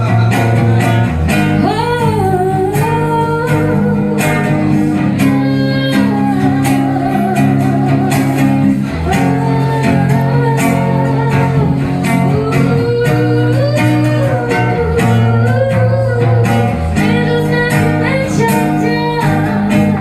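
Live band music: guitar chords underneath a wavering melody line that rises and falls, with no clear lyrics.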